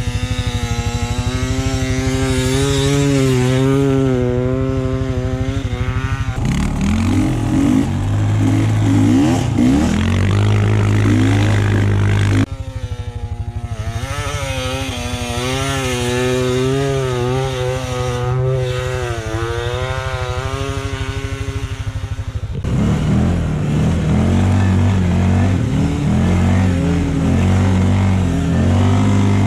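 Engines of a Beta 300RR two-stroke dirt bike and a TGB Blade 600 ATV working hard in deep snow, in several cuts. A higher engine note whose pitch wavers up and down as the revs rise and fall alternates with a lower, heavier engine note that glides up and down.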